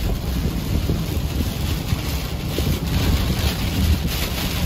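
Steady road and wind noise from a moving vehicle: a continuous low rumble with wind buffeting the microphone.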